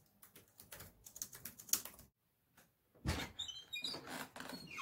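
A quick run of keyboard-typing clicks for about two seconds; then, about three seconds in, a door is pushed open with a knock and its hinges squeak in short high chirps.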